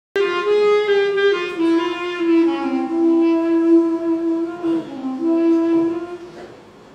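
Solo clarinet playing an unaccompanied melodic phrase of mostly long held notes, one note at a time, fading out near the end.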